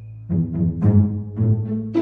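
Music: a run of struck, pitched notes, each with a sharp attack that dies away, about five in two seconds.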